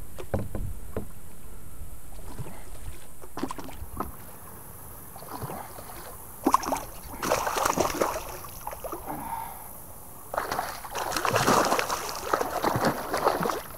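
A hooked bowfin thrashing at the water's surface beside a kayak, splashing in two bouts, the first about six and a half seconds in after a sharp smack and the second, louder, near the end. Before that there are a few light ticks and knocks.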